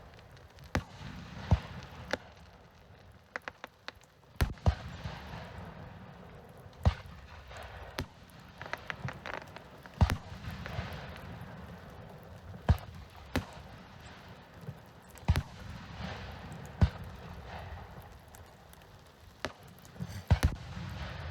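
Fireworks display: more than a dozen sharp bangs of shells bursting at irregular intervals, with a steady crackling hiss between them.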